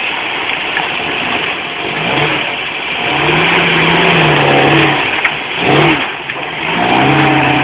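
Toyota off-road vehicle's engine revving hard under load as it drives at an off-road obstacle. The engine note climbs about two seconds in, holds, dips briefly, and climbs again near the end.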